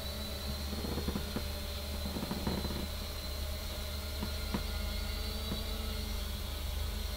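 3DR Iris+ quadcopter's electric motors and propellers in flight, a steady hum with a high whine, heard under hiss from the onboard camera's analog video link. A few faint clicks sound along the way.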